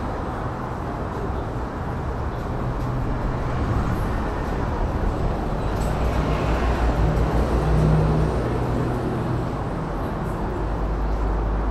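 Steady road traffic noise from a busy city street, with a bus engine running close by, loudest about two-thirds of the way through.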